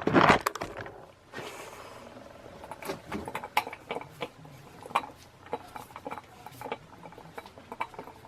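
Handling noise from a stiff, partly seized Dayton industrial ceiling fan motor being worked by hand: a loud clatter at the start, then scattered clicks, knocks and light scraping. The motor has been oiled and now turns by hand, but not freely.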